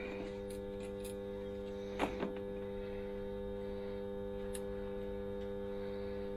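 A steady, even hum with a brief handling rustle about two seconds in.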